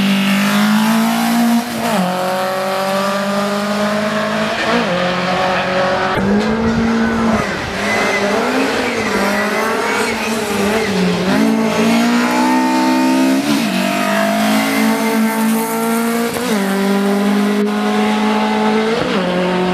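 Rally car engine at full throttle accelerating up a hillclimb course. The engine note climbs in pitch, then drops back at each gear change, again and again.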